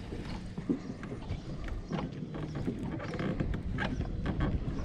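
A run of irregular light knocks and clicks over a low rumble.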